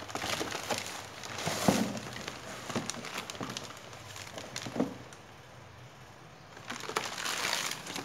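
Inflated air-column plastic packaging crinkling and rustling as it is handled and slid out of a cardboard box, with scattered sharp clicks and knocks. It goes quiet for over a second about five seconds in, then the crinkling comes back louder.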